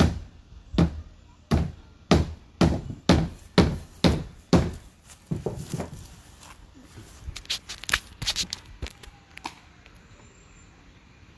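Roofing work: about ten heavy hammer-like blows, roughly two a second, followed by lighter clicks and scraping.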